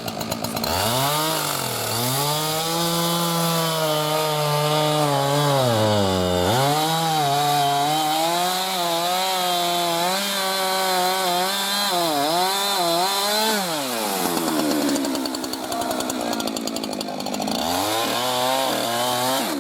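Two-stroke chainsaw cutting into a tree trunk to fell it, the engine held at high revs, with its pitch dipping and recovering several times as the bar takes the load. About 14 seconds in it drops back to a lower idle, then revs up again near the end.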